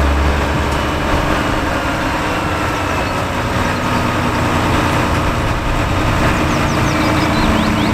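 A truck engine running steadily, with a deep low rumble that is strongest in the first two seconds.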